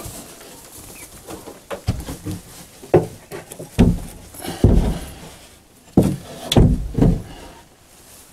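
Plywood chicken-feeder box being handled and set into place against wooden wall framing: a series of dull knocks and bumps spread over several seconds.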